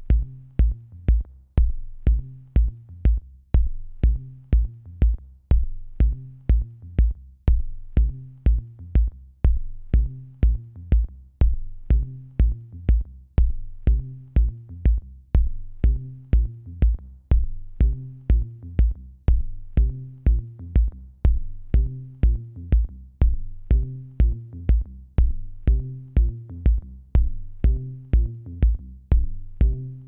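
Electronic background music with a steady drum-machine beat, about two beats a second, over a repeating bass line.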